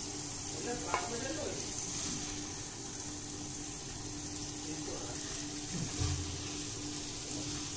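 Steady sizzle of the mushroom roast frying in its pan, with a faint steady hum underneath.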